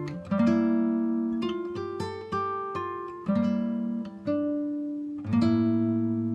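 Background music on acoustic guitar, plucked notes and chords struck about once a second, each ringing out and fading.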